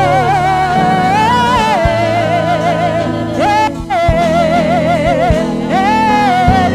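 Gospel worship music: a sustained, wavering sung melody with vibrato over held keyboard chords and bass.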